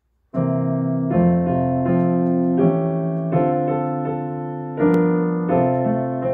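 Yamaha digital piano playing a slow reharmonised hymn accompaniment in full sustained chords. It starts about a third of a second in, with a new chord struck every second or so.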